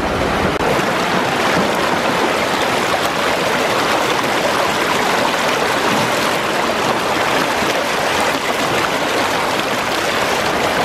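Fast-flowing stream water rushing steadily over rocks and churning around a small 3D-printed Archimedes screw turbine held in the current.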